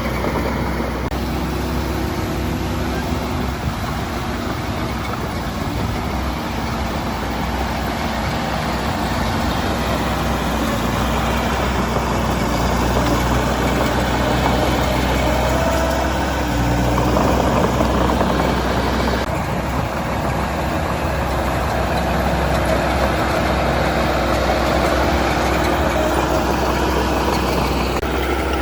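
Heavy diesel construction machine engine running steadily, a bulldozer or dump truck at work, growing slightly louder for a couple of seconds in the middle.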